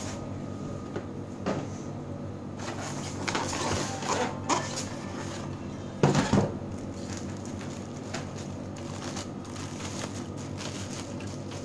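Packaging being handled while unboxing a pair of car speakers: cardboard box and polystyrene foam insert rubbing and knocking, and plastic bags crinkling around the speakers. The loudest knock comes about six seconds in, over a faint steady hum.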